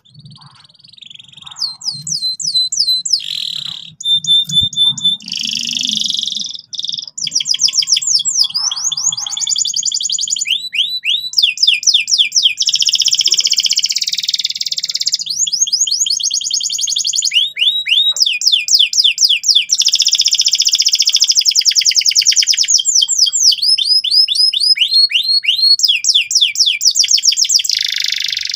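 Domestic canary singing loudly and continuously in long phrases of fast trills and rolls, each a rapid run of repeated high notes, with brief pauses between phrases.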